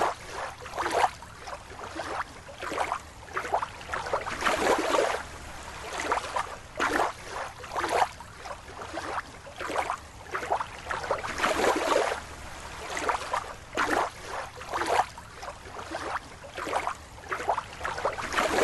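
Water splashing and sloshing in irregular bursts, about one or two splashes a second.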